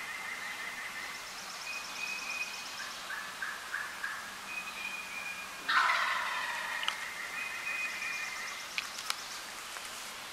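Wild turkey gobbling once, loud and sudden, about six seconds in. High thin whistled bird calls repeat in the background.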